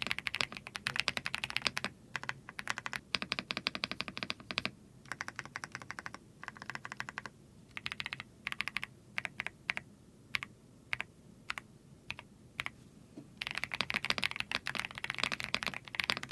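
Ducky OK-M-75 mechanical keyboard with KTT Baby switches being typed on. There are fast runs of keystrokes, then a few seconds of single presses about half a second apart, then fast typing again near the end.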